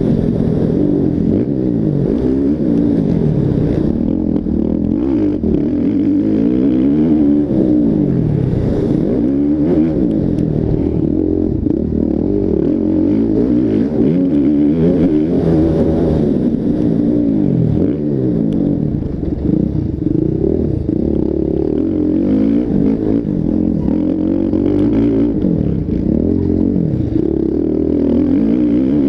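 Several motocross bike engines revving hard and dropping back, their pitches rising and falling over one another.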